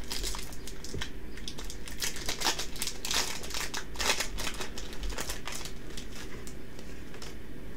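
Foil Yu-Gi-Oh booster pack crinkling and tearing as it is ripped open by hand: a run of crackly rustles that thins out near the end.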